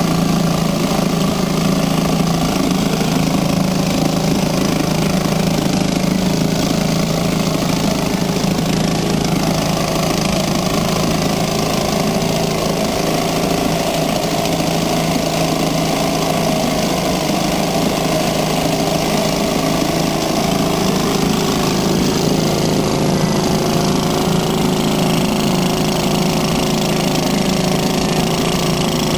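1956 Riptide Fisherman two-stroke outboard motor running steadily in a test barrel of water.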